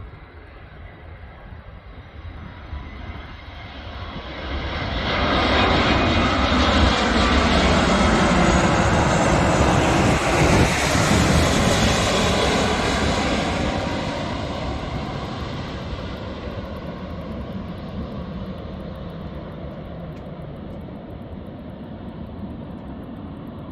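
Airbus BelugaXL's twin Rolls-Royce Trent 700 turbofans on landing approach. The jet noise swells about four or five seconds in as the aircraft passes, stays loud for some eight seconds, then fades to a lower steady rumble as it moves away toward touchdown.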